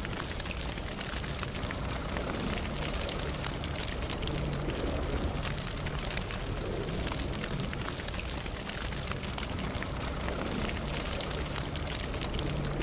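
Wood fire burning steadily, with a low rumble of flames and frequent small crackles and pops.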